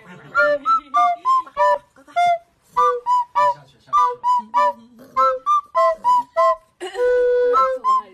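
Light instrumental background music: a bouncy melody of short, high notes, about three a second, with one longer held note about seven seconds in.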